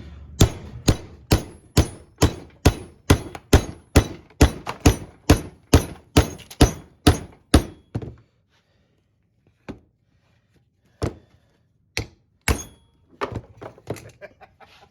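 Hammer blows driving steel bar stock into a block of 2x4 wood as a force fit: a steady run of about eighteen strikes, about two a second, then a pause, three more hard blows and a few lighter knocks near the end.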